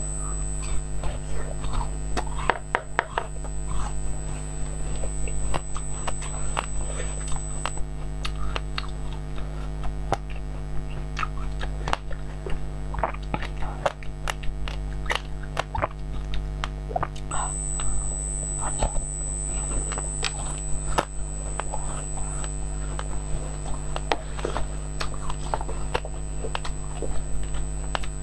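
Close-miked biting and chewing of frozen grapes: a steady run of crisp crunches and wet mouth clicks. Under it is a constant low electrical hum, and a faint high whine that comes and goes.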